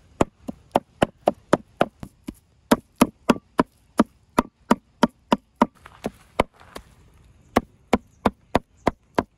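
Heavy steel meat cleaver chopping raw lamb fat on a wooden stump block: a fast, steady run of sharp chops, about three to four a second, broken by two brief pauses. The fat is being minced for kebab.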